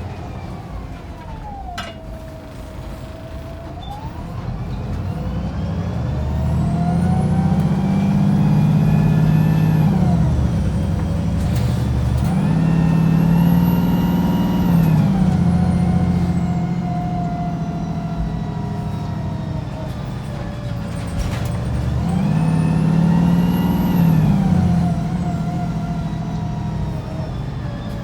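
Wright Pulsar 2 single-deck bus heard from on board, its diesel engine pulling hard: the engine note climbs in pitch for several seconds, then drops as the automatic gearbox changes up. This happens three times, with a steadier cruise between the second and third.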